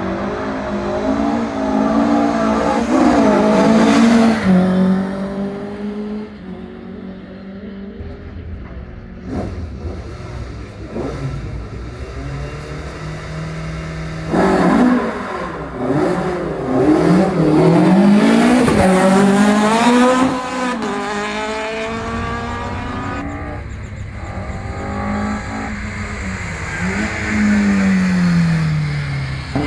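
Rally car engines revving hard and accelerating through the gears, the pitch climbing and dropping back at each change, as cars run past one after another. The loudest runs come a few seconds in and again around the middle.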